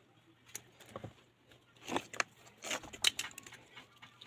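Irregular short clicks and light clinks of small hard objects being handled, over a faint steady low hum.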